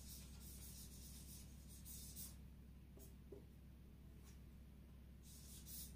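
Whiteboard marker squeaking and scratching faintly across the board as a word is written: a run of strokes, a pause with a couple of short strokes, then more strokes near the end.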